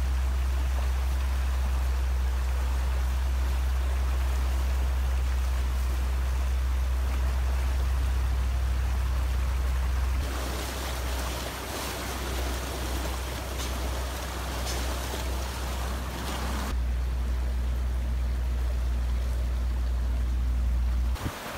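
Snowmelt-swollen creek running high and fast, a steady rushing and churning of water over a low rumble. The sound shifts twice as the view changes, about ten and seventeen seconds in.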